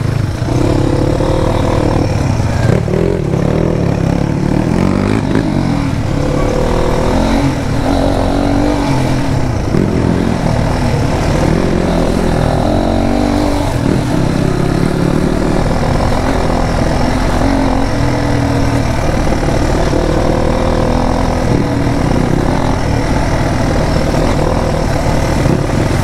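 Motorcycle engine running while riding, its pitch rising and falling as the revs change, over a steady low rumble.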